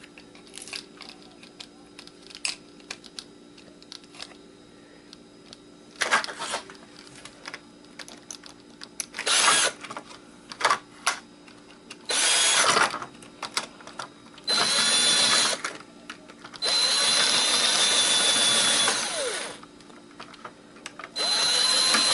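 Electric drill run in six short bursts, the longest about three seconds, working at a stripped screw that spins in place instead of turning out. Light clicks of tool handling come before the first burst.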